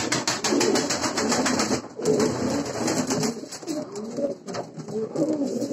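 Several domestic pigeons cooing at once in overlapping low, warbling calls, with a fast patter of clicks in the first couple of seconds.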